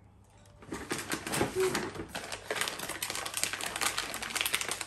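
Thin plastic bag crinkling and rustling as it is handled and opened, starting about a second in as a dense, irregular crackle.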